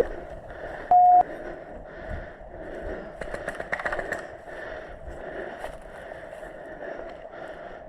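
Short, loud electronic beep about a second in over a steady hiss of radio static, with a quick run of clicks about three to four seconds in.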